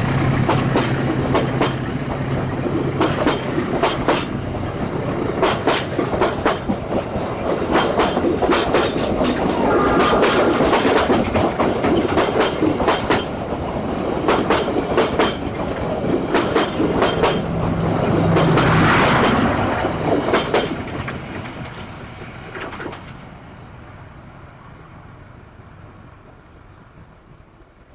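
Indonesian diesel-hauled passenger train passing: a low, steady locomotive engine hum at the start, then the carriages' wheels clattering rhythmically over rail joints for most of the time. The sound dies away over the last several seconds as the train recedes.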